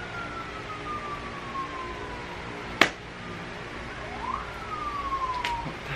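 Emergency vehicle siren wailing, a single tone sliding slowly down, then sweeping quickly back up about four seconds in and sliding down again. A sharp click about halfway through.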